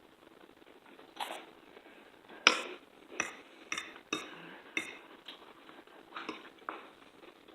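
Cutlery clinking against a plate while eating, about nine sharp clinks at uneven intervals, the loudest about two and a half seconds in.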